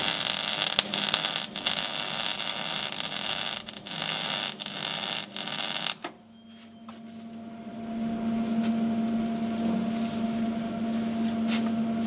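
MIG welding arc crackling steadily as a plate is welded onto a steel boat hull, cutting off about six seconds in. A steady low hum carries on after the arc stops.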